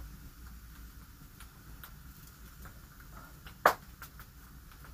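Stick campfire crackling with scattered small pops, and one sharp, loud snap about three and a half seconds in.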